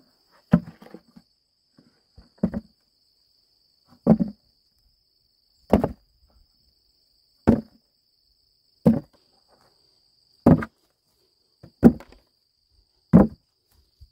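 Cassava roots dropped one by one into a plastic basket: a dull thud about every second and a half, nine in all. A steady high insect buzz runs underneath.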